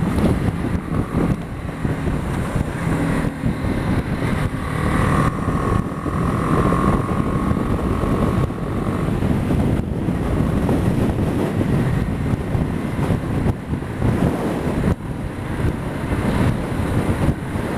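BMW G 310 GS single-cylinder engine running at steady road speed, heard under heavy wind rush on the microphone.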